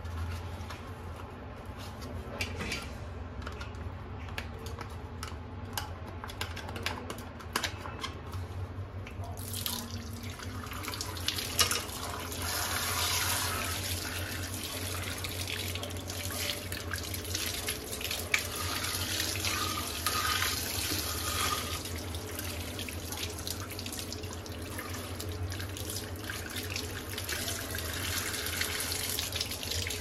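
Hands rub and knock a plastic vacuum-cleaner part with a sponge in a sink. From about ten seconds in, tap water runs and splashes steadily over the part as it is rinsed.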